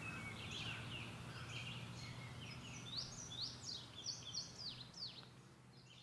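Wild songbirds calling in tree canopy: a busy run of quick, high chirps and sharply falling whistled notes. The sound fades toward the end.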